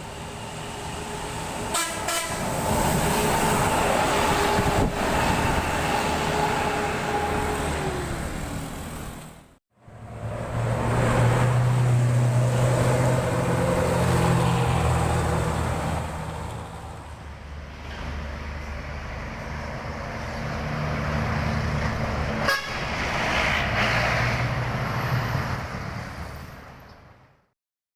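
Intercity buses passing close by. First a bus telolet horn sounds held tones that slide down in pitch as it goes past. After an abrupt cut, a large bus's diesel engine is heard running past, swelling and fading, before the sound stops suddenly.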